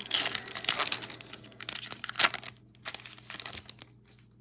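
A foil trading-card pack wrapper being torn open and crinkled by hand, with dense crackling for about two and a half seconds, then a few lighter crinkles that die away near the end.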